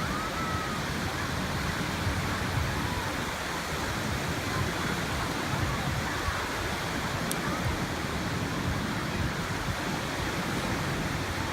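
Steady rushing noise of wind and waves at the shore.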